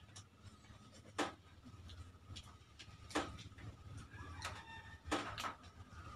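Sharp mouth clicks and lip smacks of people chewing while eating with their hands, a handful of separate clicks a second or two apart.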